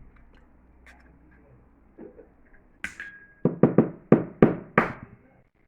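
Eggs being knocked against a hard edge to crack them. A sharp clink with a short ring comes about halfway, then six quick, loud knocks in the last two seconds.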